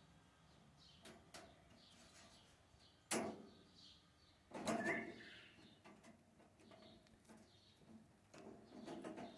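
J-clip pliers crimping clips onto a welded-wire cage door, with metal clicking against the mesh: a few sharp clicks, the two loudest about three and four and a half seconds in. Faint bird chirps sound behind them.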